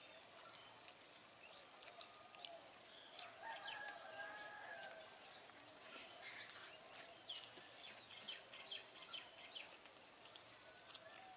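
Near silence: faint soft clicks of fingers mixing rice on a banana leaf, with birds chirping faintly in the background, most clearly in a run of short high chirps about two thirds of the way through.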